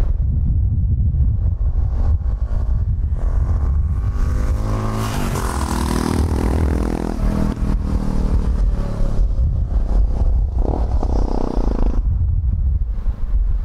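Yamaha XT660X single-cylinder engine through Leovince X3 aftermarket exhausts, accelerating with a rising pitch from about three seconds in, then easing off. It pulls again briefly near the end, over a steady low rumble of wind on the microphone.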